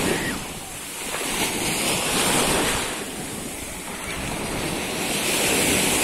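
Small sea waves breaking and washing up the sand at the shoreline, the surf swelling and falling back about every three seconds, with wind rumbling on the microphone.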